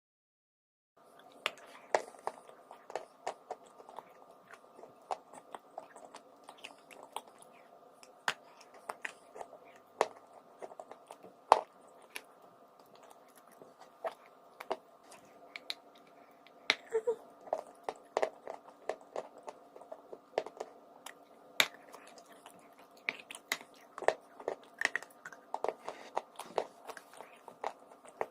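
Close-up biting and chewing of crunchy chalk and clay: irregular sharp crunches and clicks, several a second, starting about a second in, over a faint steady hum.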